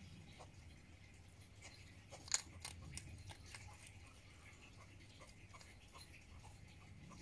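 Hedgehog crunching dry food from a dish: faint, irregular crunching clicks, with one sharper crack about two seconds in.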